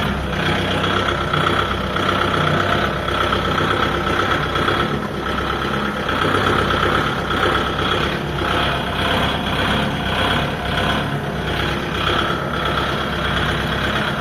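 Kubota MU5502 tractor's four-cylinder diesel engine running steadily with a higher whine over the engine note.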